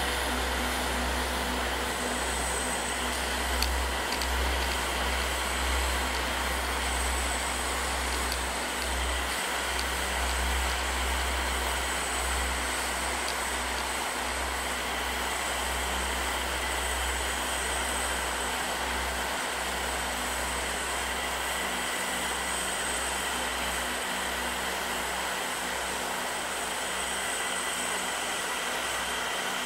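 Quadcopter's brushless electric motors and propellers running steadily, heard from its onboard camera: a constant whine with faint high tones over a rushing noise. A fluttering low wind rumble on the microphone lies beneath it.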